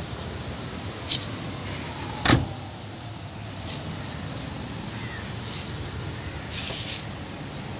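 A small hatchback's front door (Daihatsu Mira) shut with one loud thump about two seconds in, after a lighter click, over a steady low rumble.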